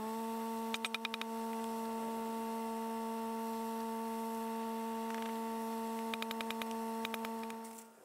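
A steady humming tone with several overtones. It drops in pitch right at the start and fades away near the end, with two short runs of rapid clicks, one about a second in and one about six seconds in.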